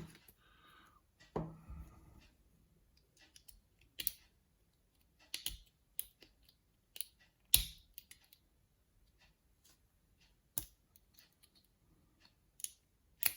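Scattered sharp metallic clicks and taps of small tools working at a dimple lock cylinder's retaining clip, at irregular intervals, the loudest a little past halfway.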